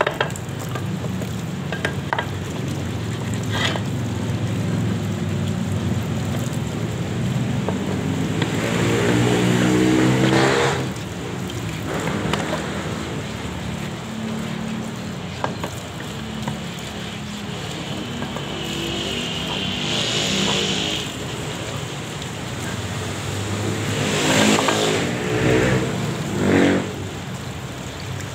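Running water pouring and splashing onto drum-brake shoes as they are scrubbed by hand in a basin. A motor vehicle engine revs up and fades twice, about nine seconds in and again near the end, loud over the water.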